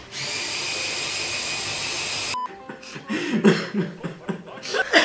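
Electric hand-held immersion blender running steadily with a whining motor as it purees a persimmon and banana smoothie, then cutting off suddenly about two and a half seconds in. Quiet laughing voices follow.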